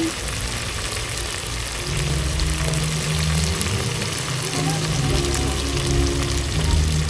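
Tomatoes and onions sizzling as they fry in hot cooking oil in an aluminium pot, cooking down into a sauce. A low steady hum joins underneath about two seconds in.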